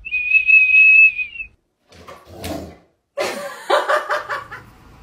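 A small plastic whistle held in a golden retriever's mouth, sounding one steady high note for about a second and a half. After a short gap come other, weaker sounds of unclear source.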